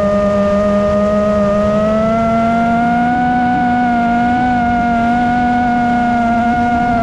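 Brushless motors and propellers of a five-inch FPV freestyle quadcopter whining steadily in flight, heard through the GoPro mounted on it, over low wind rumble. The whine rises a little in pitch about two seconds in as the motors speed up.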